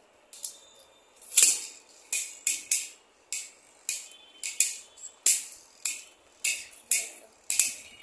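Beyblade spinning tops clashing and skidding in a glass pot lid with a metal rim, making sharp clinks with a brief ring, about two a second; the loudest clash comes about a second and a half in.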